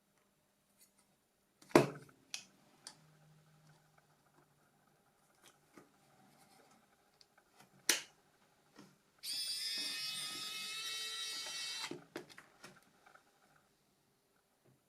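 A few sharp clicks and taps of small parts and tools being handled, then a small high-speed electric motor whirring steadily for about two and a half seconds before it stops.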